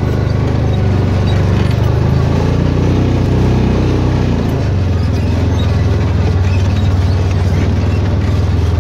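Side-by-side UTV's engine running as it drives, a steady low drone heard from the seat, its pitch shifting slightly about halfway through.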